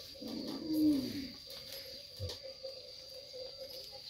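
A single low animal call lasting about a second near the start, falling in pitch at its end.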